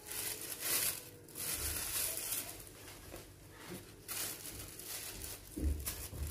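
Clear plastic food-handling glove and plastic sheet crinkling and rustling in irregular bursts as a hand presses a portion of sticky rice, with two dull low thumps, one about a second and a half in and one near the end.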